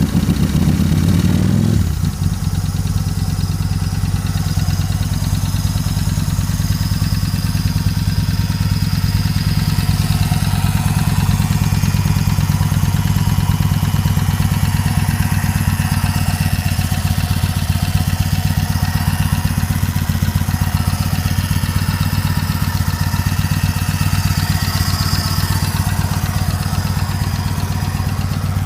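Motorcycle engine just after a hard start. It rises briefly in the first two seconds, then settles into a steady idle.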